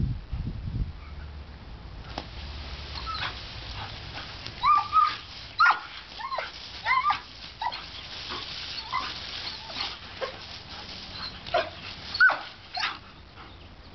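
German shepherd puppy whining and yipping in a string of short, high, wavering cries as she plays in the jet of a garden hose. The hiss of the hose spray runs underneath.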